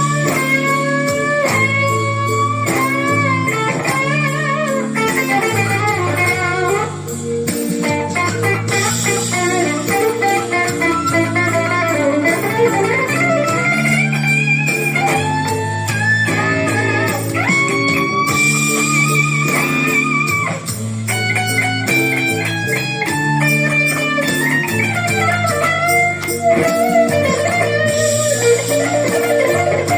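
Blues music: an electric guitar plays lead lines with string bends over a backing track of bass and drums.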